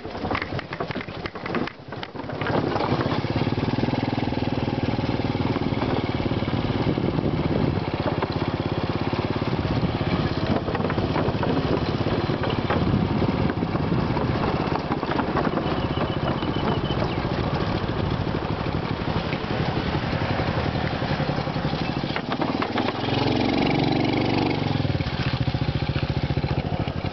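Small motorcycle engine running steadily while riding. It picks up about two and a half seconds in after a brief dip, and its pitch slides up and down near the end as the revs change.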